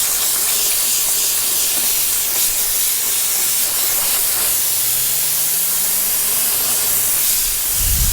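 Steady, loud hiss of rushing air, with a faint low tone rising in pitch near the middle.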